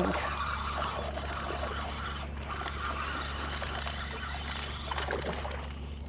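Water splashing and faint clicks as a hooked speckled trout is reeled in on a spinning rod, over a steady low hum.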